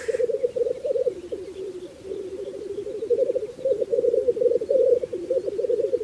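Male black grouse (blackcock) giving its lekking display song: a continuous low bubbling coo, rapidly pulsed, in rolling phrases that dip slightly in pitch.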